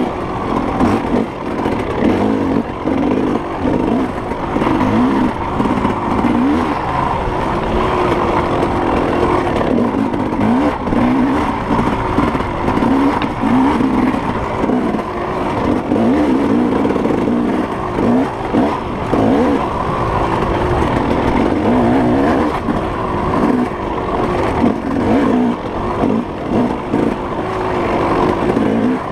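Off-road racing engine revving up and down continuously as the throttle is worked on and off, over steady wind and trail noise.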